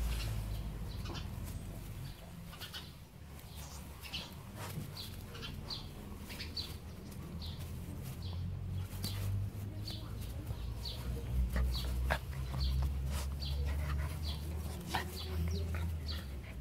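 Puppies scuffling and playing in grass, with short high chirps repeating throughout over a steady low rumble on the microphone.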